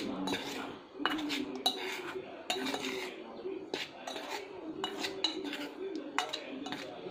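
Metal spoon stirring dry flour in a stainless steel bowl: repeated irregular clinks and scrapes of spoon against the steel.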